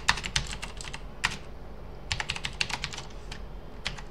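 Typing on a computer keyboard: quick runs of key clicks, a dense run at the start and another a little after two seconds, with a short pause between and scattered single keystrokes near the end.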